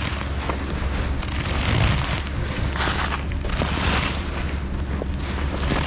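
Low, steady rumble of wind buffeting the microphone, with several short bursts of hiss.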